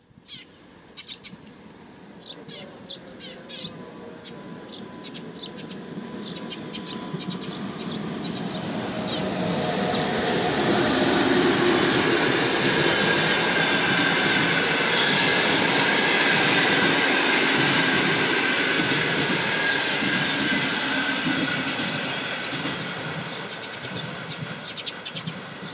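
Passenger train of coaches passing close by on steel rails. Sharp clicks come as it approaches, then a dense rumble of wheels on track builds to its loudest about halfway through and slowly fades as the train moves away.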